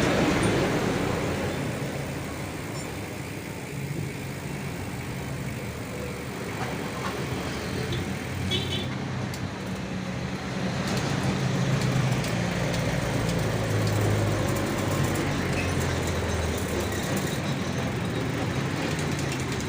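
Road traffic noise: a steady rush of passing vehicles, with a low engine hum that grows louder in the second half.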